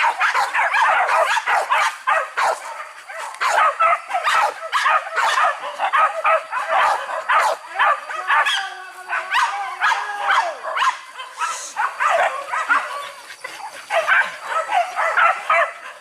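A pack of hunting dogs baying, yelping and barking all at once, many voices overlapping without a break, with a longer drawn-out howl-like cry about halfway through.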